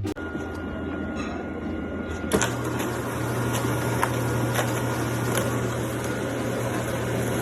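A steady mechanical hum with hiss. A louder low hum sets in about two seconds in, and a few light clicks come through it.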